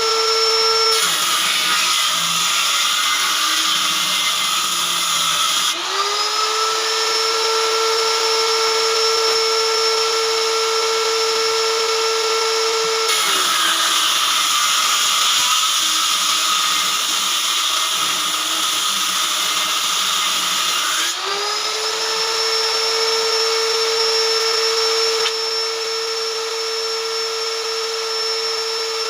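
High-speed electric woodworking power tool running with a steady whine. Twice the whine sinks and gives way to a rougher cutting noise as the tool works through the wood, then climbs back to full speed.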